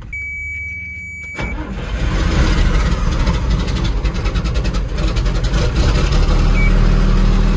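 A GMC truck's engine being cranked by the starter, with a steady high tone sounding during cranking. The engine catches about a second and a half in, and the tone stops. It then runs loudly and settles into a steady idle.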